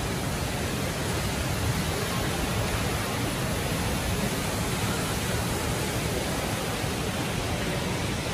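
Steady rushing roar of falling water from the Rain Vortex, the tall indoor waterfall at Jewel Changi Airport, an even noise with no breaks.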